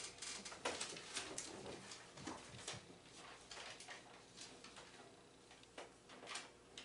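Bible pages being turned by hand: faint, irregular rustles and small clicks.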